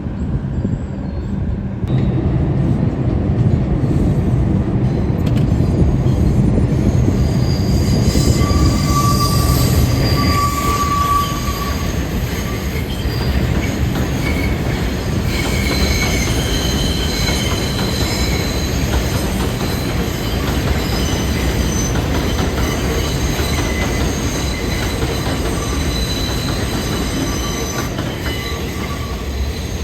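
New York City subway train rolling through the station with a heavy rumble from the wheels and cars, which swells about two seconds in. From about eight seconds in, its steel wheels squeal in several high steady tones that come and go.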